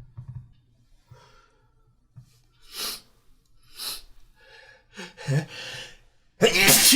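A person's sneeze build-up: two sharp breaths, a few halting voiced gasps, then a loud voiced sneeze with falling pitch near the end.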